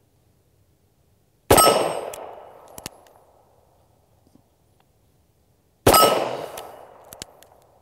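Two shots from an M1895 Nagant revolver, about four seconds apart, each followed by a steel target ringing and dying away. A few light clicks come after each shot.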